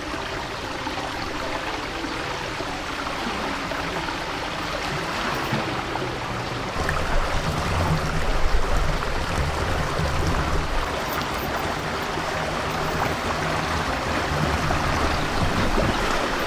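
Water rushing through a concrete irrigation channel and spilling over a wooden weir board. From about seven seconds in, the flow gets louder and heavier as the board is eased loose and more water pours past it.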